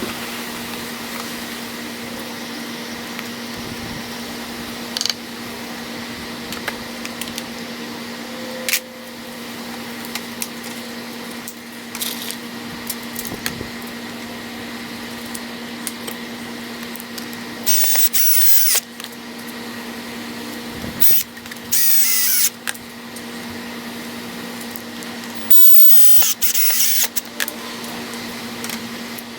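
Power drill driving screws into 2x4 lumber in three short bursts, each about a second long, with light clicks and knocks of handling the wood between them over a steady hum.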